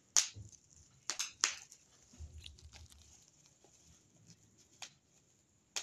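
Bubble wrap being popped by hand: a handful of sharp single pops at irregular intervals, the loudest three in the first second and a half, then a few fainter ones.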